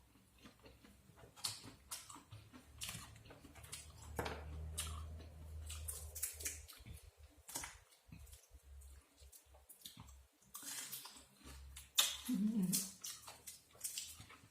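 Someone eating shellfish: scattered clicks and crackles of shells being handled and broken, with chewing sounds, the loudest crackles near the end.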